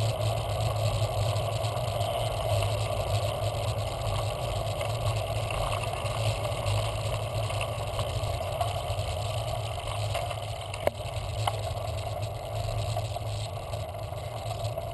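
Steady wind rush and tyre-on-road noise on a handlebar-mounted camera as a bicycle rolls along a paved street, with a couple of faint ticks about two-thirds of the way in.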